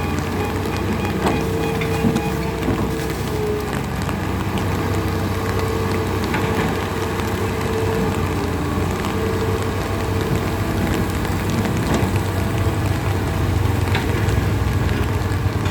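Steady rain with a vehicle engine running underneath, a low hum and a faint on-off drone throughout.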